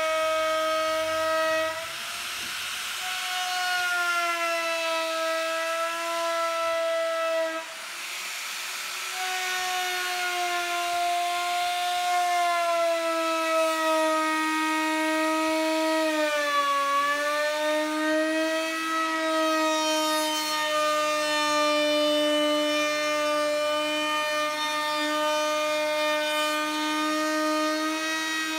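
Electric sander running on a round wooden table top: a steady motor whine whose pitch sags and recovers as the sander is pressed into the wood, dipping most deeply a little past halfway.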